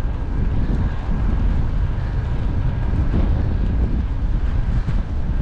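Wind buffeting the microphone of a bicycle-mounted camera while riding along a road: a steady, loud, low rumbling rush with no distinct events.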